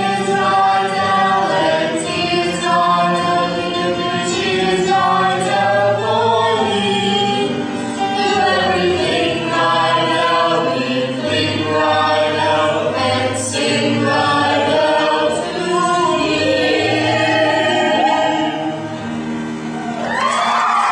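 A stage choir of many voices singing together in harmony, holding long notes. Right at the end the singing gives way to a noisier sound.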